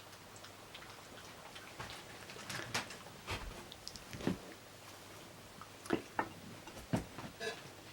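Dogs eating raw vegetables off a plate: irregular crunching and clicking as they bite and chew, with the loudest crunches in the middle and near the end.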